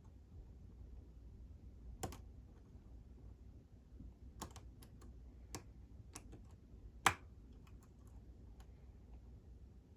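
Lock pick and tension wrench working inside a Sargent Signature lock cylinder: scattered small metallic clicks and ticks as the pins are picked, with a louder click about two seconds in and the loudest about seven seconds in.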